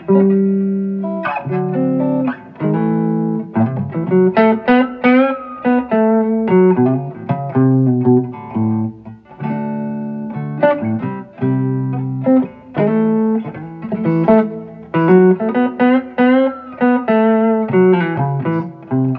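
FireFly FF338 semi-hollow electric guitar played on its rewound neck humbucker: a steady run of picked chords and single-note lines, each note starting sharply and ringing on.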